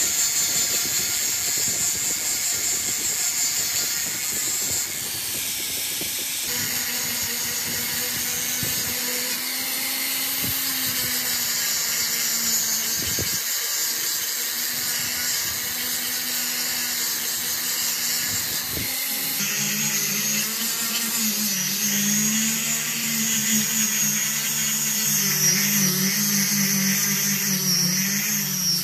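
Small angle grinder with a sanding disc running at full speed, a steady high whine with the disc rasping against wood as it sands a wooden seat. The tone changes abruptly twice, about a quarter of the way in and again about two-thirds in.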